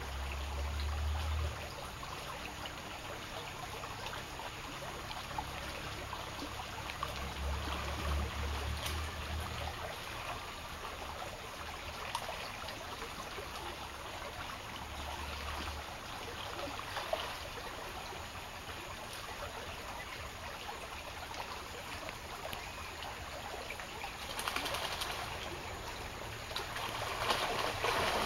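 Shallow stream trickling steadily as a golden retriever wades through it, with louder splashing from the dog near the end.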